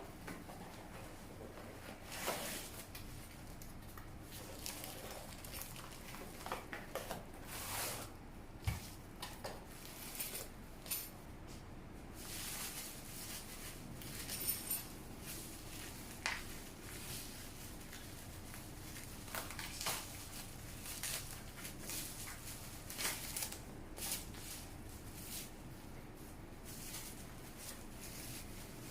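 Irregular rustles, clicks and light clinks from unpacking and handling the parts of a tiered cake plate set, spread unevenly throughout.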